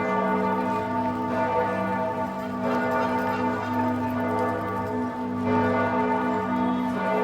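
Church bells of Giotto's bell tower in Florence ringing in a continuous peal, their sustained tones overlapping and pulsing without a break.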